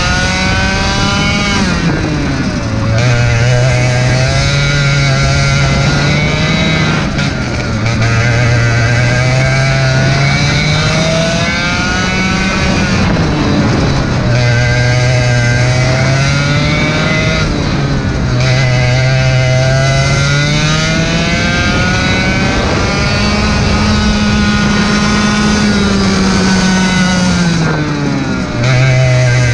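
Racing kart engine at full throttle, heard from the driver's seat. Its note climbs steadily along each straight and drops sharply about four times going into the corners, then climbs again.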